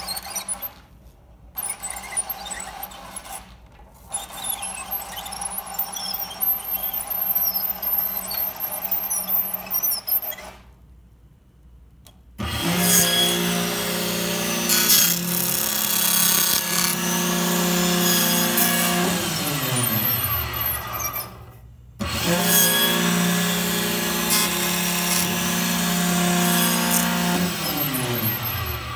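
Let-R-Edge channel letter former working a 5-inch chrome strip. First there is lighter clatter and rubbing. Then the machine's drive runs twice, starting about twelve and twenty-two seconds in: each time a loud steady hum and whine that falls in pitch as the machine slows to a stop.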